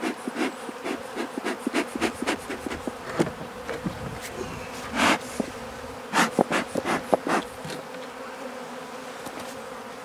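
Bees buzzing around a beehive in a steady hum, with single bees flying close past now and then. A run of short, sharp bursts of noise comes over the first seven seconds or so, the loudest a little after five seconds in.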